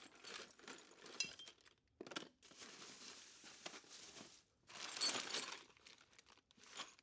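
Rummaging through loose hardware for short screws: rustling and crinkling with a few small metallic clinks, and a louder rustle about five seconds in.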